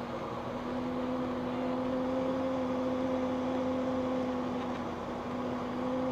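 Flight Design CTSW's Rotax 912 engine and propeller droning steadily at constant power in flight, heard in the cockpit, with a steady hum running through the noise.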